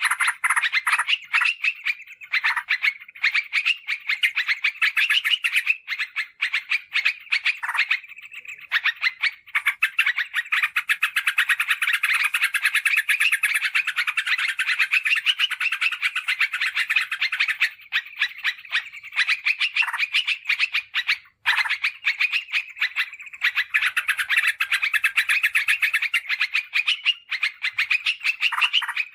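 Yellow-vented bulbul (trucukan) song: fast, dense chattering trills that run almost unbroken, with brief pauses about eight and twenty-one seconds in.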